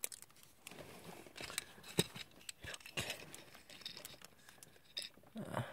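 Hands handling a small plastic model jet: soft rustling with scattered light clicks and taps of fingers on plastic.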